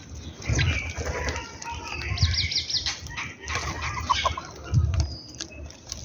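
House sparrows chirping, and doves' wings flapping in short flurries as they flutter down to land.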